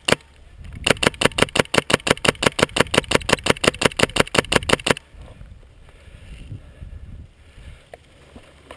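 Airsoft rifle firing a long full-auto burst of about four seconds, at about ten shots a second, starting about a second in; the gun is loud and close, likely the Polar Star HPA-powered gun of the player filming. Afterwards only faint rustling and handling noise.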